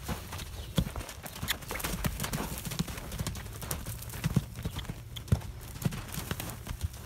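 Hoofbeats of a two-year-old stallion moving around a sand round pen at a trot and lope: a run of irregular, dull thuds from the hooves striking the sand.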